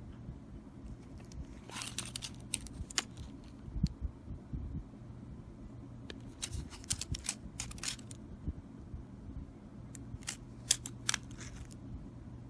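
Scattered sharp clicks and snips from small plastic items and packaging being handled, several in quick runs, over a steady low hum.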